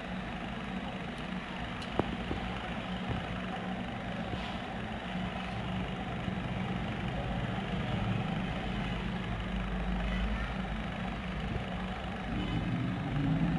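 Steady low hum over background noise, with one sharp click about two seconds in. Right at the end a rising whine begins.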